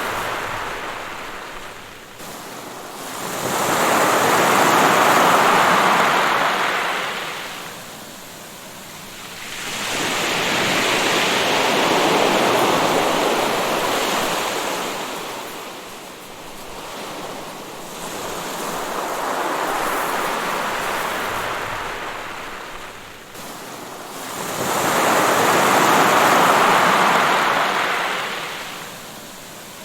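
Waves washing onto the shore, swelling and ebbing in slow surges about every seven seconds, four times over.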